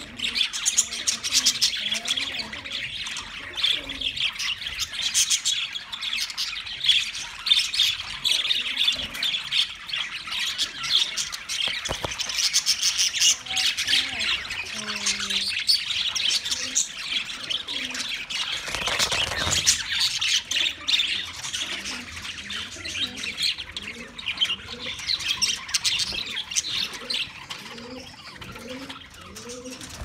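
A flock of budgerigars chattering continuously: a dense, overlapping mix of chirps, squawks and warbling calls.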